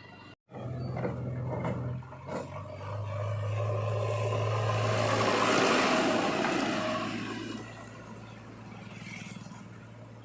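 Heavy diesel engine of an earthmoving machine running, cut off briefly near the start. About three seconds in it revs up louder and works harder, then it settles back to a steady run near the end.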